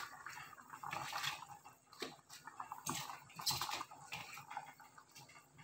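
Pot of sinigang broth simmering, with faint irregular bubbling, drips and small splashes as pechay (bok choy) leaves are put into the liquid.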